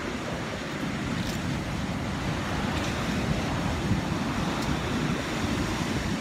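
Rough Pacific surf breaking and washing over a rocky shore, a steady rushing noise, with wind buffeting the microphone.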